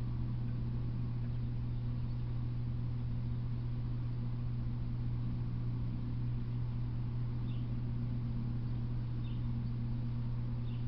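A steady low hum that does not change, with a few faint, short, high chirps about two-thirds of the way in and near the end.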